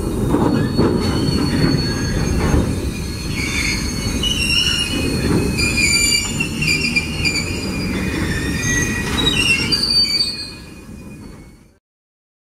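Train wheels rumbling on the rails, with high-pitched squeals of steel wheels on rail coming and going. The sound fades near the end and then cuts off to silence.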